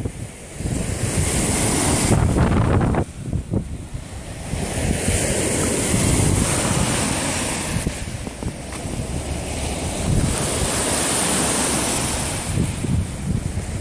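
Lake Ontario waves washing in, the hiss swelling and fading every few seconds, with wind buffeting the phone's microphone as a low rumble.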